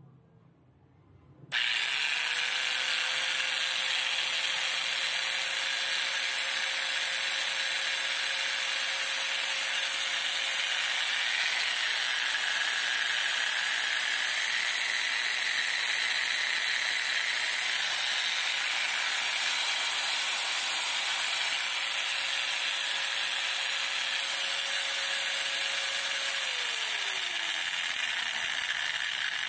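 Black & Decker KG15 angle grinder's brushed motor switched on about a second and a half in, spinning up quickly and running steadily at full speed with a steady whine over a loud hiss. Near the end its pitch falls as it starts to wind down.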